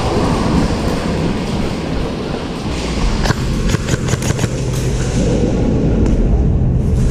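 Airsoft gunfire: a quick run of about seven sharp cracks just past the middle, over a steady low rumble of handling and movement noise.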